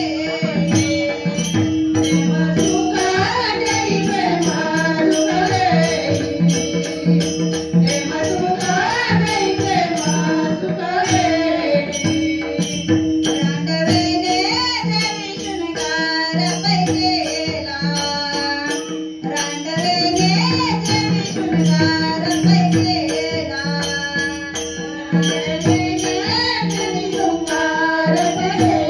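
Marathi devotional abhang sung over a steady held drone, kept in time by a fast, even jingling of hand percussion.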